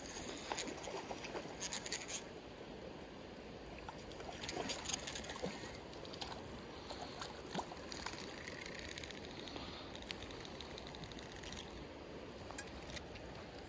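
Shallow creek water trickling, with scattered small splashes and clicks while a hooked trout is reeled in on a spinning rod; the clicks and splashes cluster near the start and again about five seconds in.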